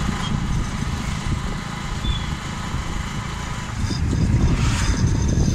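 Riding on a motorcycle: wind buffeting the microphone over engine and road noise, as a heavy, uneven rumble that grows a little louder near the end.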